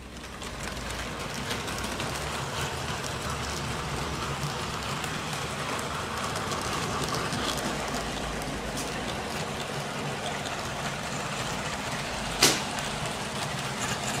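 00 gauge model steam locomotive and its train of coaches running along the track: a steady rattle of small wheels on the rails, with light irregular clicks. One sharp, loud click comes about twelve and a half seconds in.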